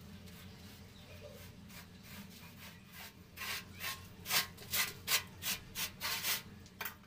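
Paintbrush stroking bitumen waterproofing paint onto a concrete pond floor and wall: soft rubbing at first, then quick scratchy brush strokes, about two a second, from about three seconds in.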